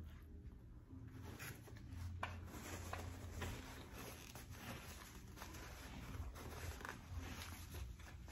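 Paper napkin rustling and crinkling as hands are wiped with it, with soft chewing.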